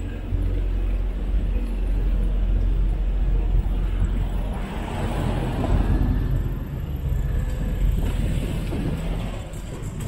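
Motor traffic on a street, a steady low rumble that rises just after the start and eases slightly near the end.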